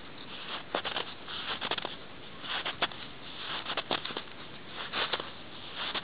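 Footsteps treading in two-day-old snow, each step a short creaking crunch made of crackles and sharp clicks, about one step a second, five in all.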